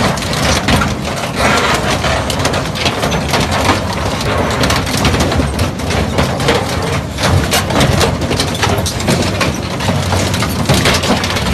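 Hammer crusher crushing material, loud: a dense, unbroken clatter of many cracks and impacts.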